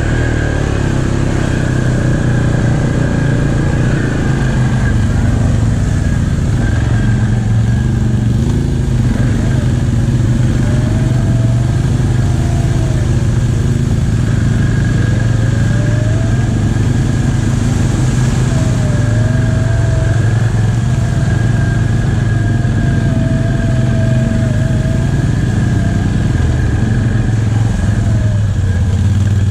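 ATV engine running steadily at low trail speed, its pitch rising and falling slightly as the throttle changes.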